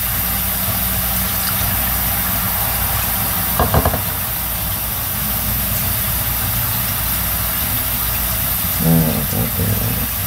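A steady whirring hum, like a kitchen fan, runs throughout. About three and a half seconds in comes a short clatter of kitchenware, such as a spoon knocking in a glass measuring cup.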